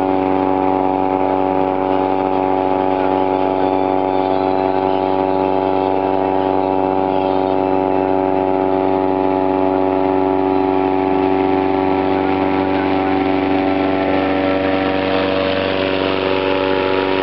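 An engine running steadily at a constant speed, its hum unchanging, with a hissing noise growing louder near the end.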